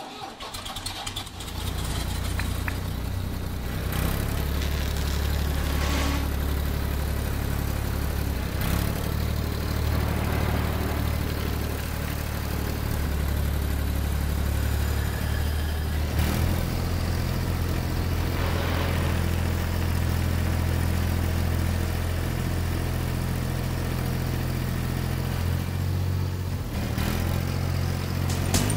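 Tractor engine running steadily, a low drone whose pitch shifts slightly about halfway through, with a few short knocks along the way.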